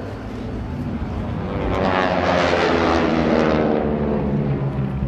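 A powered aircraft flying past overhead: its engine sound swells from about a second in, is loudest in the middle, and drops in pitch as it passes and fades away.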